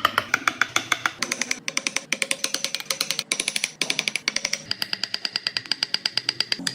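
Rapid, even tapping, about ten strikes a second, each with a ringing tone. The pattern changes abruptly a few times.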